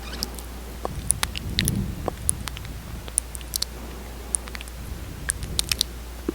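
Close-miked wet lip smacks and sticky mouth clicks, coming irregularly as lips press together and part over glossy lip product.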